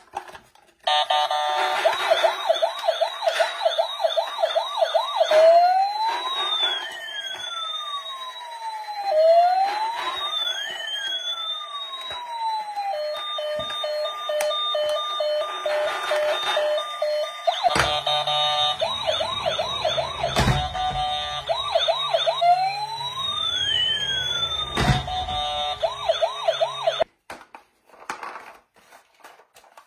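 Electronic toy ambulance siren sounding, switching between a fast warble, a slow rising and falling wail and a steady pulsing tone, then cutting off near the end. A few clicks and knocks come from the plastic toys being handled.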